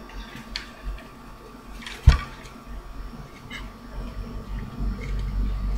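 Hands handling a paper-covered cardboard tube: a few faint clicks and one sharp knock about two seconds in, over a steady low hum.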